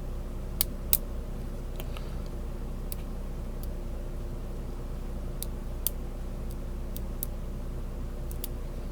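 Scattered small metallic clicks of a short hook pick working the pins inside a Brinks padlock under light tension, with two sharper clicks about a second in and another near six seconds.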